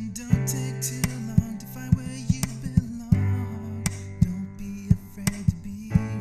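Background music: a guitar-led track with a steady beat, the chord changing about every three seconds.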